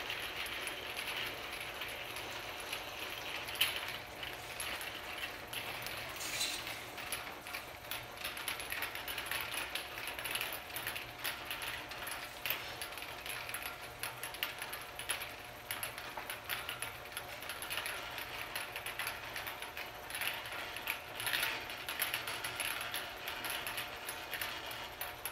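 60-inch rotary accumulation table turning, its load of 50 ml vials clinking against each other and the guide rail in a steady stream of small clicks, with a steady hum underneath.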